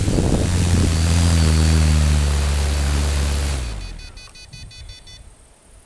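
DJI F450 quadcopter's motors and propellers running at low speed with a steady hum and rush of air, then winding down slightly in pitch and stopping about three and a half seconds in.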